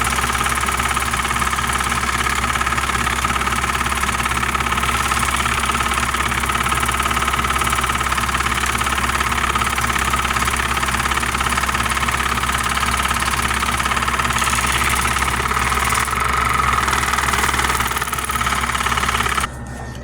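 Water flosser's small pump motor running with a steady buzz, its water jet hissing as it sprays through air conditioner coil fins; it cuts off suddenly near the end.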